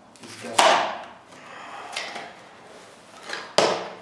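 A cardboard USPS Priority Mail box being pulled open, its glued flap tearing away from the adhesive. There are three tearing bursts: the strongest about half a second in, a smaller one around two seconds, and a sharp one near the end.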